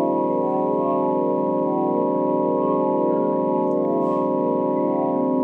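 Space-sound recording presented as the sound of Jupiter's moon Amalthea: a steady, eerie organ-like drone of many held tones with a slow wavering shimmer, like ambient music.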